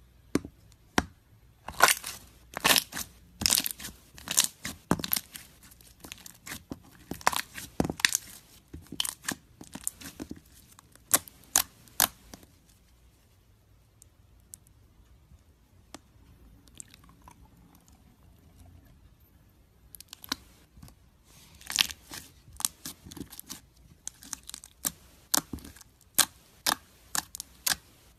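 Slime crackling and popping in quick, sharp clicks as it is stretched, pressed and poked with fingers and a metal masher. The clicking dies down for several seconds in the middle, then picks up again.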